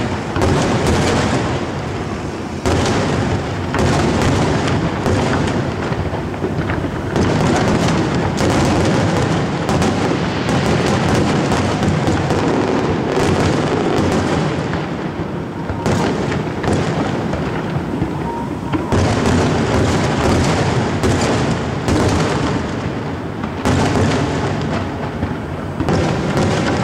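Large aerial fireworks display: a dense, unbroken barrage of shell bursts, booms and crackling, one burst running into the next.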